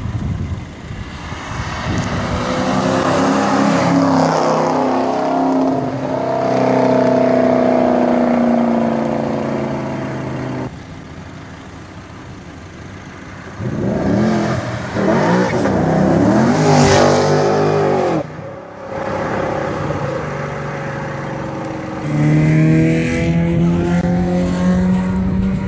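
Cars driving past one after another, each engine note swelling and sliding in pitch as it goes by. There is a sudden break about three-quarters of the way through, then a steadier engine note near the end.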